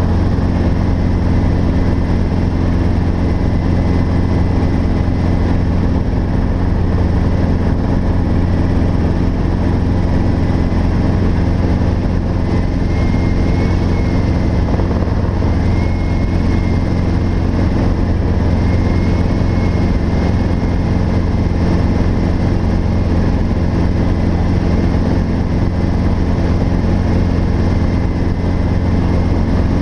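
Robinson R22 helicopter in flight, heard from inside the cockpit: a loud, steady drone of engine and rotor with a thin high whine above it that wobbles slightly partway through.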